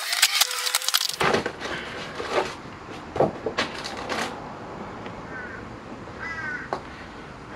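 Packing being handled by hand: crinkling plastic wrap, then cardboard and foam rustling and scraping with a few sharp knocks. Two short squeaks come later on.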